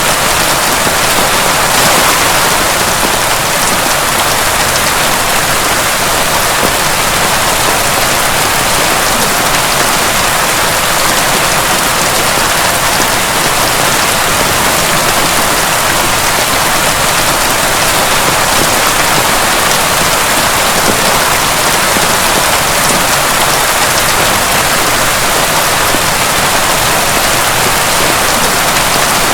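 Heavy rain pouring down steadily in an even, dense hiss, with no thunder or other event standing out.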